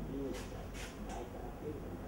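Indistinct, untranscribed voices talking, with a few sharp hissing consonants, over a steady low background hum.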